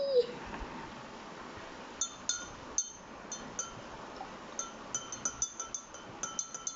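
Metal spoon stirring a drink in a glass mug, clinking against the glass in irregular runs of light, ringing taps that come faster near the end.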